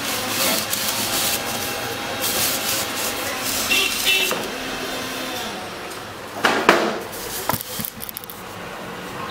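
Cardboard box rubbing and scraping as it is slid off polystyrene foam packing blocks, with a few sharp handling knocks about six and a half seconds in.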